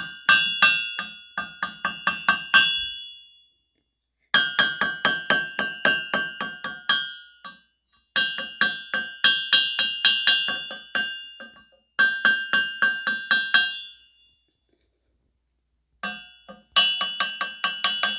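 Ford 351 Cleveland crankshaft struck repeatedly with a hammer, giving a clear bell-like ring after each blow, in about five quick runs of taps with short pauses between. The clean ring is the sign of a sound crank; a dull sound would point to cracks.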